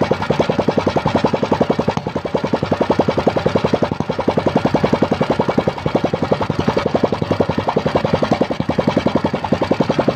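Small single-cylinder petrol engine of a sogo boat motor running steadily, with a fast, even beat of firing pulses.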